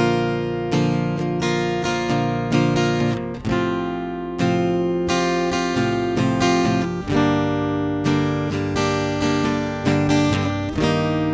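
Acoustic guitar played through a FET preamp pedal and recorded direct through a small mixer/interface: chords strummed and picked in a steady rhythm, a new chord struck about every second.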